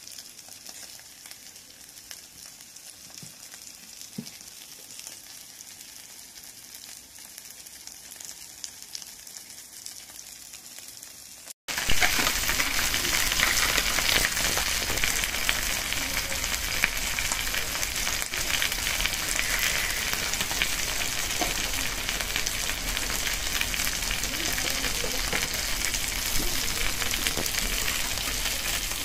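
Okonomiyaki and yakisoba sizzling on a hot plate: a soft steady hiss that jumps to a much louder, dense sizzle about twelve seconds in.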